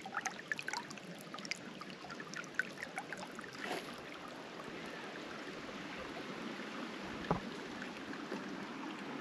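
Small rocky mountain creek trickling and splashing over stones: many small drips and splashes in the first few seconds, settling into a steady flowing rush. One short knock about seven seconds in.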